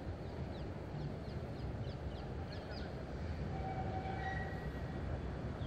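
Tram approaching along its track: a low rumble, with a steady high-pitched whine setting in about three and a half seconds in.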